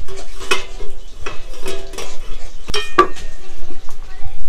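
Metal utensils clinking and scraping in a metal pot of boiled green peas, checked to see if they are cooked: several sharp clinks with a ringing tone, the loudest about three seconds in.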